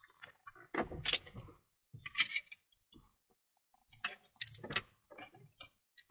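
Window tint film being cut along a straight edge on the glass: a handful of short scraping, rustling strokes with light clicks.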